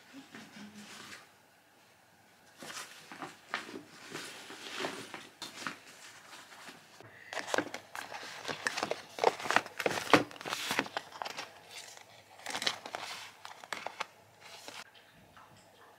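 Clear plastic toiletry pouch full of skincare sample sachets and tubes being handled, giving irregular crinkling and clicking rustles, busiest and loudest around the middle.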